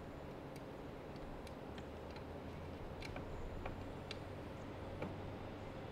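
Scattered small clicks of an Allen wrench working the Allen bolts under a chain grinder's vise assembly as the bolts are loosened, over a faint steady low hum.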